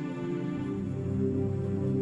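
Background music: a slow, ambient documentary score of held tones, with a low bass note coming in about half a second in.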